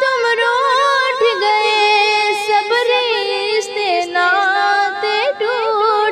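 A female voice singing a mournful Urdu kalam for a dead father, drawing out long held notes with wavering, ornamented turns rather than distinct words.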